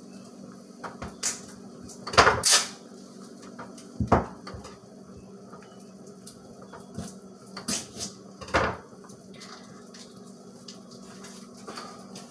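Kitchen handling noises: about five separate knocks and clatters of utensils and containers being picked up and set down, the loudest about two seconds in, over a steady low hum.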